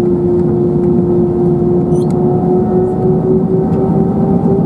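Airbus A321's CFM56 jet engines heard from inside the cabin over the wing during ground operations: a steady rumble and hum with a whine that rises slowly in pitch.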